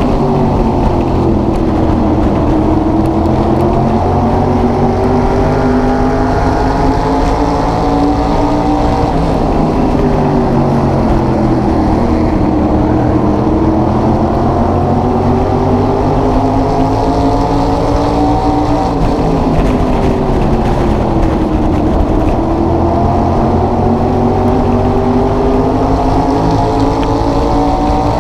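SK Modified race car's carbureted small-block V8 heard from onboard at racing speed. Its pitch climbs steadily along each straight and drops sharply as the driver lifts for each turn, about every nine to ten seconds.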